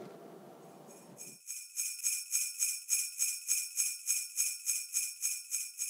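Sleigh bells shaken in a steady rhythm, about four high jingles a second, starting about a second in after faint room tone.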